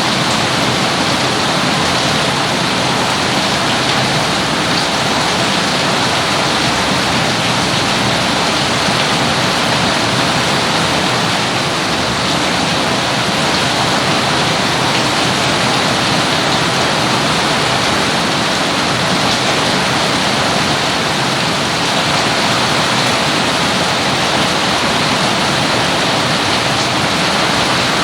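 Steady rain falling: a dense, even hiss with no let-up.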